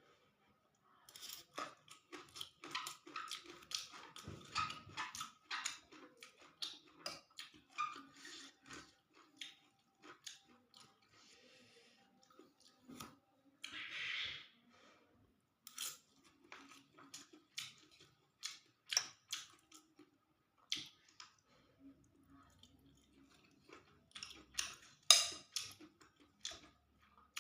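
A person chewing a mouthful of fried rice vermicelli and tofu close to the microphone, with many short wet clicks and smacks, and a short hiss about fourteen seconds in.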